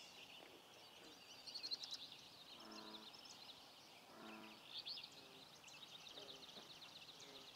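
Faint songbird chorus, many overlapping chirps and trills. Two short low calls stand out, about three and four and a half seconds in.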